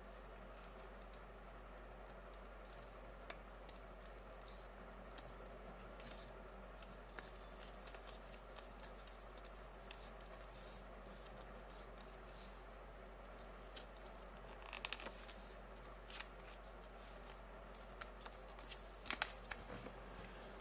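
Faint rustling and crinkling of a square sheet of paper being folded and creased by hand, over a steady low electrical hum. A few slightly louder rustles come about three-quarters of the way through and near the end.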